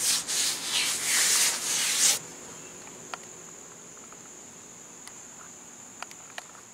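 Dual-action (DA) sander with 80-grit paper sanding down high spots on a plastic car bumper: a rasping hiss that surges and eases with each pass, then stops suddenly about two seconds in. A steady high whine and a few faint clicks follow.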